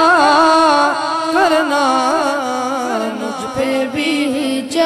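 A singer's voice through a microphone sings a naat, an Urdu devotional song, with ornamented, wavering held notes; the melody slides down in pitch and softens, and a new phrase begins near the end.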